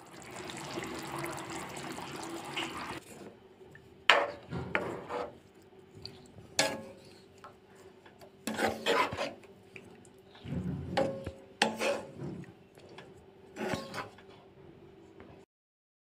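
Creamy paneer gravy bubbling in the pan with a steady hiss for about three seconds, then a white plastic spatula stirring it, scraping the pan in separate strokes every second or two. A faint steady hum runs underneath.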